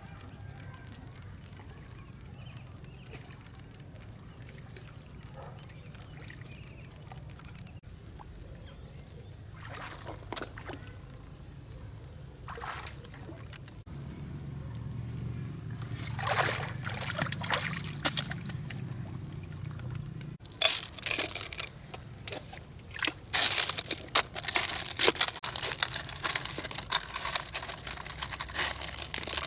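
Water trickling and pouring, with irregular splashes and sloshes that grow busier and louder in the last third. A low steady hum runs underneath.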